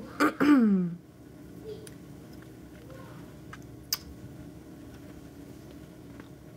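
A woman burping: a short burp, then a longer, louder one that falls in pitch, both within the first second. A single sharp click about four seconds in.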